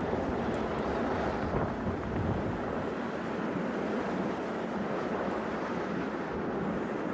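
Steady blizzard wind rushing and buffeting the microphone, with a few faint clicks near the start.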